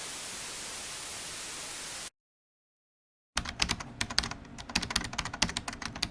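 Steady hiss of static that cuts off suddenly about two seconds in. After a second of dead silence, rapid irregular keyboard typing clicks start and keep going.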